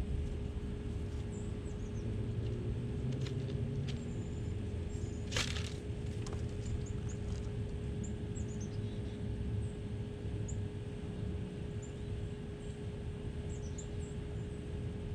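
Outdoor ambience: a steady low rumble with short, high chirps of small birds here and there, and one sharp crackling snap about five seconds in.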